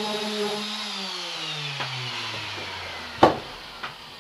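Corded handheld power tool switched off and running down, its motor whine falling steadily in pitch over about two seconds until it dies away. A sharp knock follows a little after three seconds, then a lighter one.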